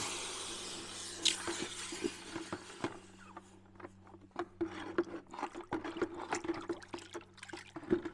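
Hot, freshly bent metal pannier bracket plunged into a bucket of water to quench it: a sharp hiss at the start that fades over a second or two, then water sloshing and the metal knocking and clinking against the bucket as it is swished around.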